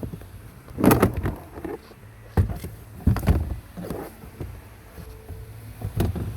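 Plastic interior trim panel being worked loose by hand: a handful of irregular knocks and clicks as its clips and edges shift and pop.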